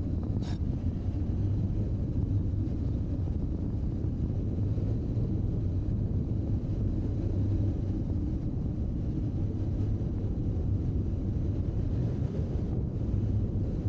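A BMW R1200GS's flat-twin boxer engine running at a steady cruise, mixed with wind noise on the microphone. A brief click comes about half a second in.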